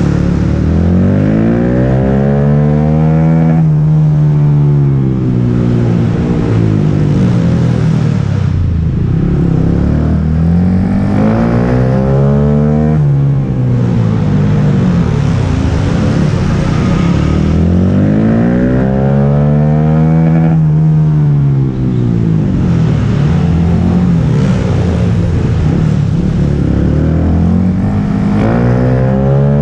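Go-kart engine heard up close from on board, its pitch climbing as it accelerates and falling as it backs off, over and over as it laps. The pitch drops sharply once about halfway through.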